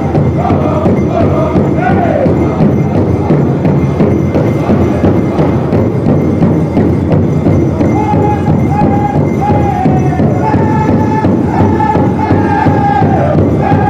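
Pow wow drum group playing for the chicken dance: a big drum beaten in a steady beat under a chorus of singers in high, sliding vocables. About halfway through, the singers hold a high line for several seconds, then slide down near the end.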